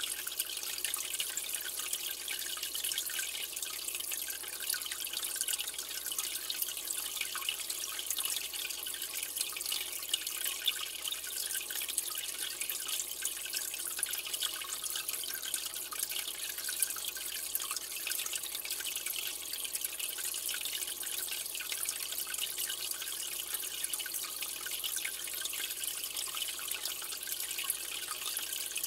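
Aquarium water trickling and bubbling: a steady, even fizz of tiny drips and splashes.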